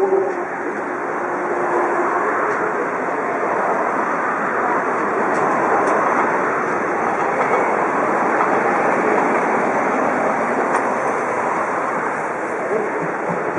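Steam locomotive passing close by at low speed, a steady loud noise of steam and running gear.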